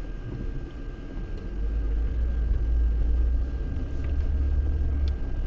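Lada Niva Bronto being driven off-road: a low engine and drivetrain rumble that swells about a second and a half in and eases near the end, with a faint steady high whine over it.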